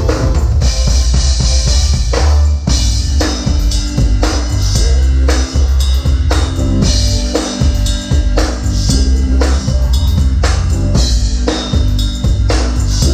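A live band playing a groove, with a drum kit's strikes loud over strong, steady bass.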